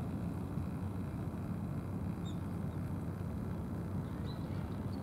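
Steady low outdoor rumble, with a few brief, faint bird chirps about two seconds in and near the end.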